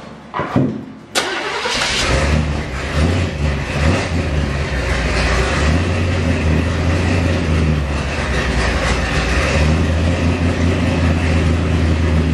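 Tall T hot rod's engine cranking briefly and catching about a second in, then running steadily at idle with its newly fitted oil pump.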